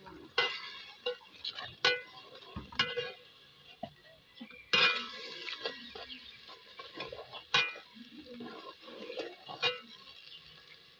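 A metal slotted skimmer stirring liquid in a metal cooking pot, scraping and knocking against the pot's sides and bottom. There are a few sharp ringing clanks between the softer scrapes, the loudest about five and seven and a half seconds in.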